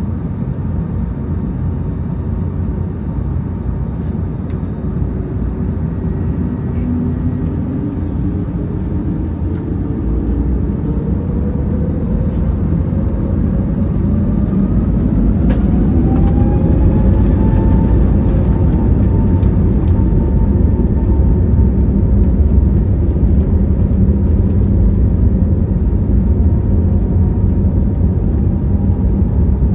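Airbus A321neo on its takeoff roll, heard from the cabin: the Pratt & Whitney PW1100G geared turbofans spool up to takeoff thrust with a rising whine. The whine levels off about two-thirds of the way through, over a steady, growing rumble.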